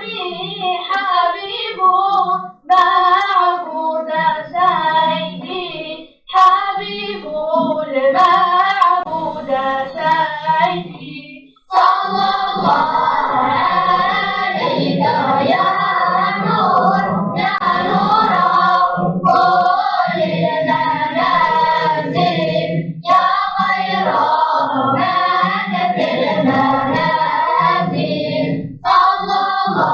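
Children's vocal group singing a devotional song together. The singing comes in short phrases with brief breaks at first, then runs on fuller and without pause from about twelve seconds in.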